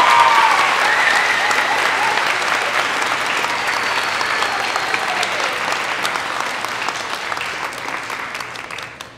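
An audience applauding and cheering, with a few high whoops in the first couple of seconds; the applause slowly thins and stops just before the end.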